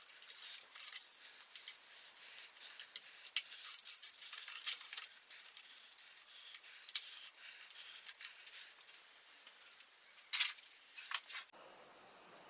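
Metal tools and loosened parts clinking and rattling against the bicycle's handlebar stem in quick, irregular clicks as the handlebars are taken off, with a louder cluster of clinks near the end.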